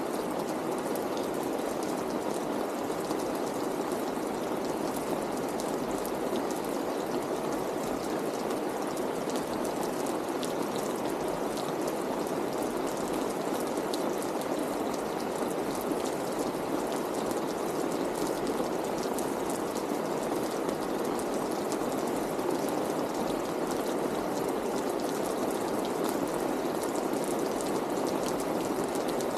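Rain falling steadily: an even, unbroken rush with scattered sharp drop ticks.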